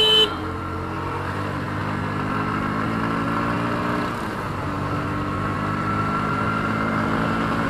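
Bajaj Pulsar NS125's single-cylinder engine running steadily while riding in town traffic. It eases off about four seconds in, then slowly picks up again. A short horn beep sounds right at the start.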